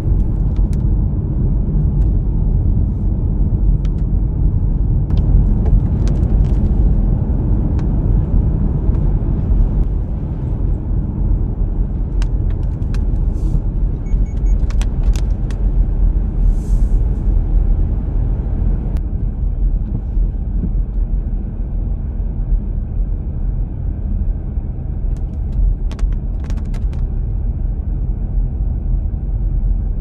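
Steady low road rumble of a car driving on wet pavement, heard from inside the cabin, with occasional light ticks.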